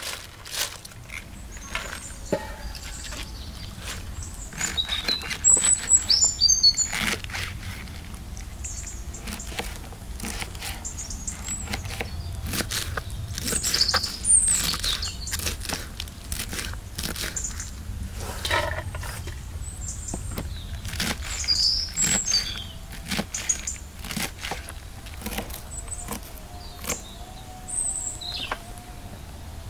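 Kitchen knife chopping cabbage on a cutting board: a long run of sharp, irregular taps. Birds chirp now and then.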